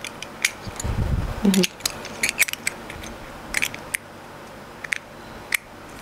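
Small irregular metallic clicks and taps from a stainless-steel tea infuser ball being handled and closed, with a dull low thump about a second in.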